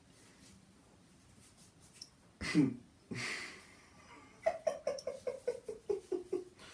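A man laughing without words. There is a short falling vocal sound about two and a half seconds in, then a breath, then a giggle of quick short bursts, about five a second, dropping steadily in pitch.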